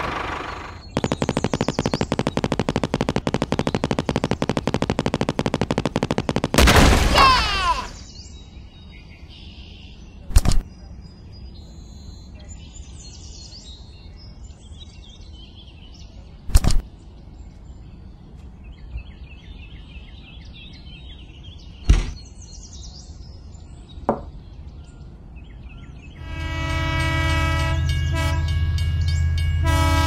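Toy steam locomotive on plastic track: a fast, even rattle for several seconds, then a loud sliding whistle-like sound. After a quieter stretch with a few sharp clicks, a steady multi-tone horn sound over a low hum starts near the end as the toy train moves off.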